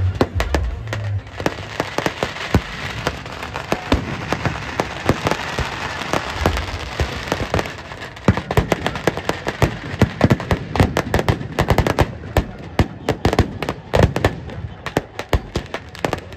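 Firecrackers packed into a burning Ravana effigy going off in a rapid, irregular string of sharp cracks and bangs. A steady rushing noise sits under them for the first several seconds.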